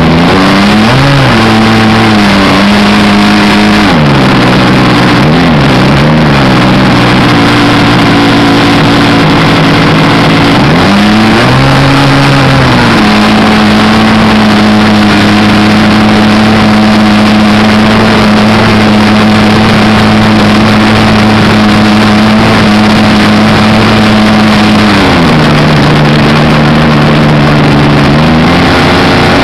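Engine of a radio-controlled model Cessna Skylane airplane, heard up close from under the wing, running loud with air rushing over the microphone. Its pitch swings up and down a few times in the first several seconds and again about 11 seconds in, holds steady for a long stretch, then drops about 25 seconds in and climbs again near the end.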